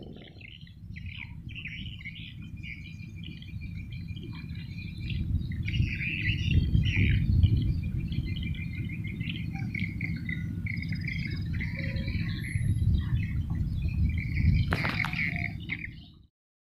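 Small birds chirping and twittering in quick repeated notes over a steady low rumble. The sound cuts off suddenly near the end.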